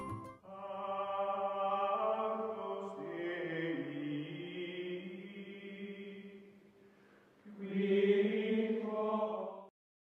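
Outro music of slow, sustained chords that change every few seconds. It thins out about seven seconds in, swells louder again, and cuts off abruptly near the end.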